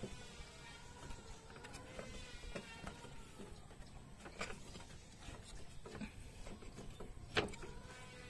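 Faint clicks and knocks of a rubber radiator hose being handled and pushed onto its metal radiator neck, with a sharper knock near the end.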